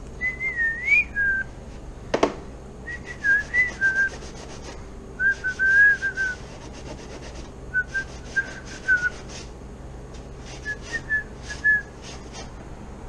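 A person whistling a wandering tune in five short phrases with pauses between them. There is one sharp knock about two seconds in.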